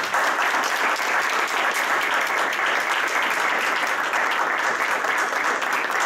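Audience applauding, a dense, steady clapping with no break.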